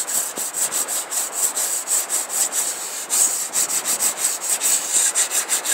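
Sandpaper rubbed by hand along the edge of a rawhide-backed wooden bow, dressing the rawhide edge flush: a rasping hiss in quick back-and-forth strokes, several a second, that stops abruptly near the end.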